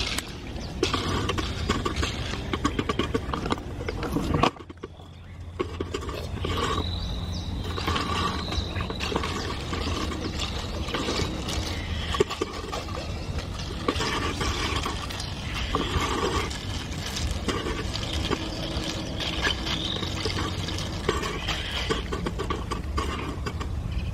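A straw stirring crushed ice in a plastic cup of drink, with many small clicks and rattles over a steady low rumble; the sound drops away briefly about four seconds in.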